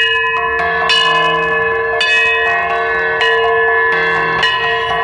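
Bells ringing in a slow, tuned pattern, a new strike every half second to a second over a steady held tone.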